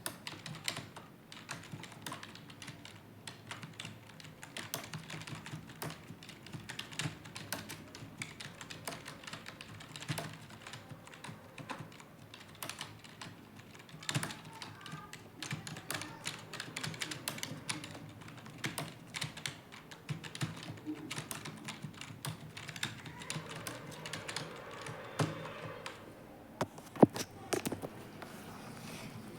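Fast typing on a computer keyboard: a dense, uneven stream of keystroke clicks, several a second, with one sharper, louder clack a couple of seconds before the end.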